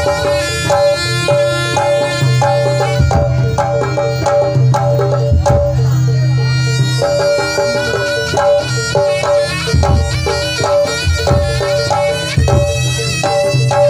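Javanese jaranan accompaniment: a shrill reed trumpet (slompret) plays a wavering melody over steady hand-drum (kendang) strokes and a low sustained drone.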